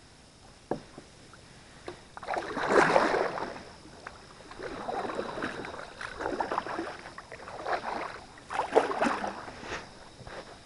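Kayak paddle strokes in water: a run of about six splashes, roughly one every second or so, the first the loudest, after a single knock about a second in.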